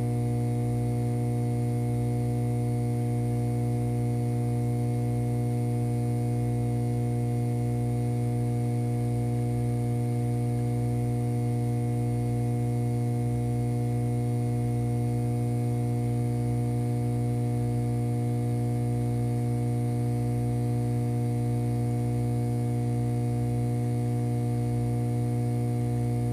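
Steady electronic hum: a strong low drone with several steady higher tones above it and a faint hiss, unchanging throughout.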